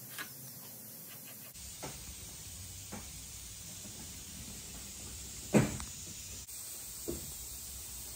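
Steady hiss of shop background noise with a few light knocks and taps, the sharpest about five and a half seconds in.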